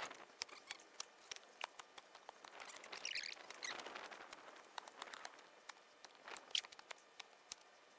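Digging by hand in soil at a rabbit warren: a spade scraping and soil and small stones clicking, in a run of short, irregular scratchy scrapes and clicks.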